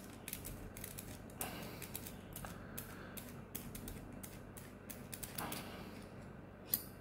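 Faint small clicks, ticks and light scrapes from a retractable fountain pen being handled and taken apart at the barrel, with a short scrape about a second and a half in, another about five and a half seconds in, and a sharper click near the end.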